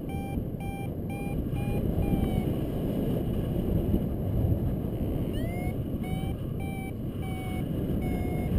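Paraglider variometer beeping about twice a second over steady wind rush, the sound of the glider climbing in lift. The beeps stop for a couple of seconds before the middle, then start again.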